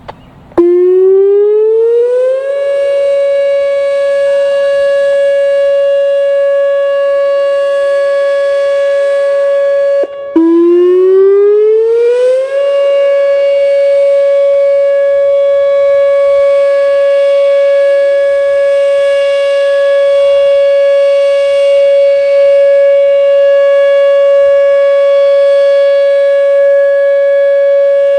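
Whelen WPS-2807 outdoor warning siren sounding its steady Alert tone, pitched at 560 Hz. It starts about half a second in, winding up from a lower pitch to the steady tone in about two seconds. About ten seconds in it cuts out for a moment and winds up again.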